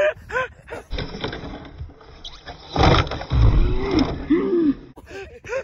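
GT Snow Racer steering sled sliding down snow, with a loud thump of the crash about three seconds in, followed by a low drawn-out vocal cry.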